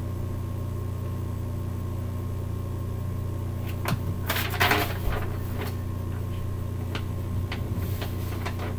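Steady low electrical hum, with a brief scratchy rustle about four seconds in.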